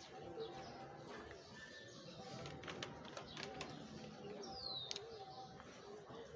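Birds calling in the background, with a dove cooing in a run of short, evenly spaced coos and a brief falling whistle about two-thirds of the way through. Light clicks and rustling of paper come as notebook pages are turned.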